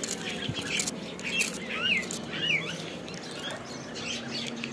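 Caged birds chirping, a few short up-and-down calls in the middle, over small snaps and taps of a knife cutting cauliflower florets.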